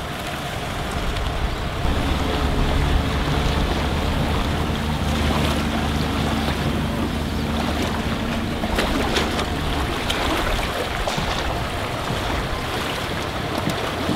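Wind buffeting the microphone over small waves lapping at the water's edge. A steady low engine hum runs from about two seconds in and fades out a little past the middle.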